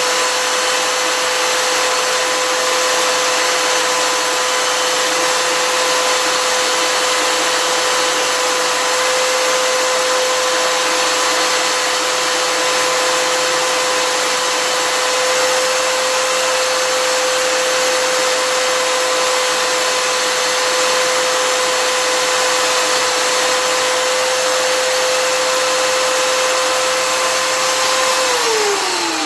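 Electric drill running at a steady speed with a lock key pin spinning in its chuck while a triangle file is held against it to deepen a serration: a steady whine over a hiss, winding down near the end.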